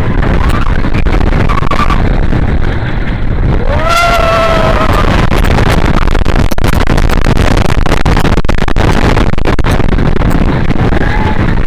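Wind rushing over the microphone and a wooden roller coaster train clattering along its track at speed, with a rider's yell rising and falling about four seconds in.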